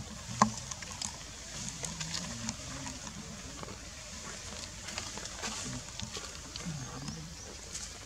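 Outdoor ambience: a steady hiss with scattered light clicks and rustles, one sharper click about half a second in, and faint low wavering sounds underneath.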